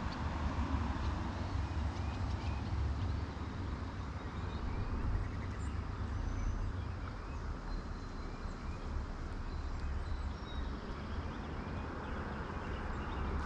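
Steady rushing of flowing creek water with a low rumble of wind on the microphone.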